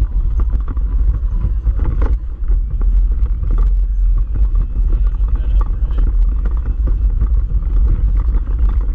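Off-road vehicle running along a rough rocky track, its engine and jolting body making a steady heavy rumble, with frequent short knocks and rattles as it bumps over the stones.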